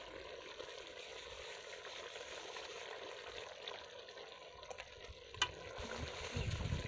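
A pot of stew bubbling over a fire, giving a steady hiss, while a metal ladle stirs it and clicks once against the pot about five seconds in. A low rumble comes in near the end.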